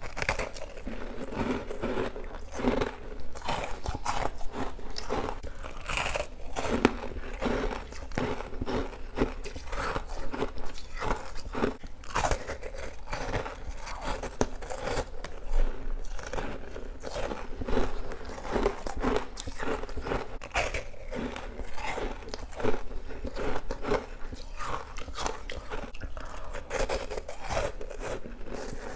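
Close-up biting and crunching of humidifier frost with passion fruit, with crisp crunches coming several times a second and chewing between bites.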